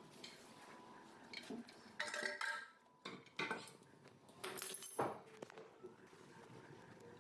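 Hard objects clinking and clattering against each other in a few separate bursts, the loudest about two and five seconds in, over a faint steady hum.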